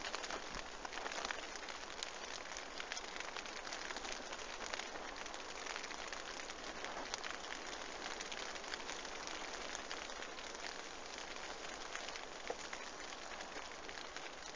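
Steady rain falling on and around a bivvy shelter, an even hiss full of the small ticks of individual drops.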